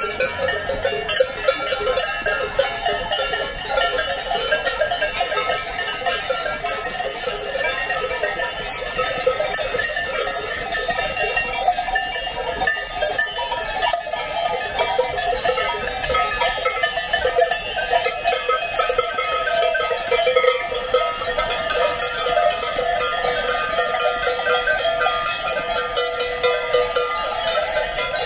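Many cowbells on a herd of cows walking past, clanging together in a continuous, overlapping jangle.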